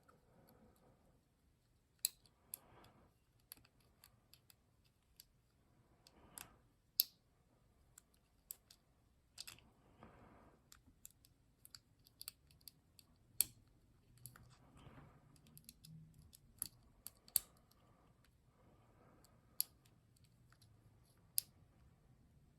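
Faint, irregular clicks and ticks of a lock pick and tension wrench working the pins of a small pin-tumbler lock during single-pin picking.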